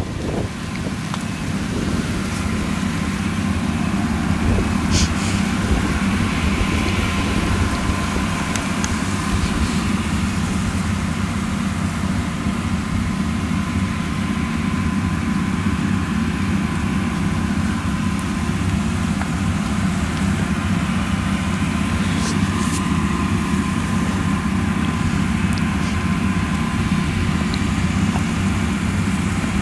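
Claas Lexion 760 TT combine harvester running steadily as its unloading auger pours shelled maize into a trailer: a constant engine drone with a faint steady whine, and a couple of brief ticks.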